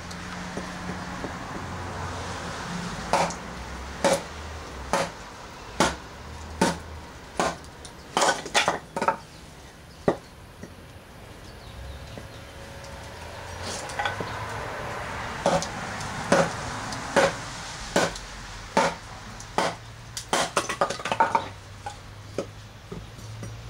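A baton striking the spine of a Cold Steel Magnum Kukri machete, driving the blade down through a piece of wood. The knocks come about once a second, with a pause of a few seconds midway and a quick flurry near the end, over a steady low hum.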